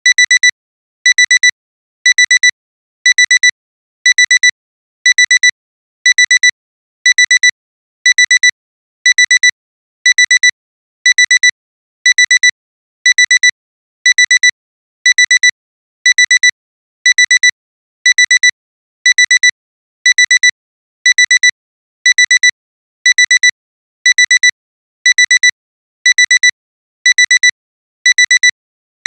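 Digital alarm clock alarm beeping: a high-pitched electronic tone in short clusters of rapid beeps, repeating about once a second without change.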